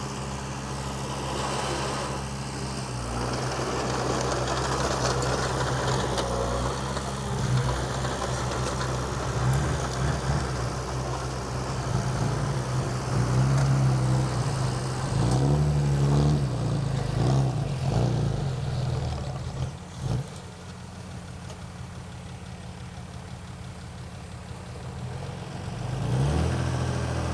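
Komatsu D20P bulldozer's diesel engine working under varying load, its note rising and falling, dropping to a quieter steady run about twenty seconds in and picking up again near the end.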